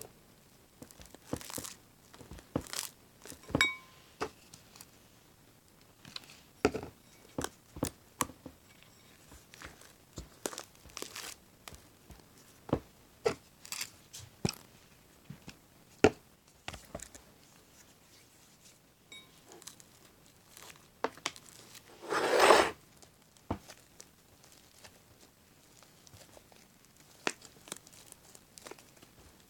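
Fluffy shaving-cream slime being kneaded and stretched by hand, giving irregular sharp crackles and pops, with one louder, longer squelch about two thirds of the way through.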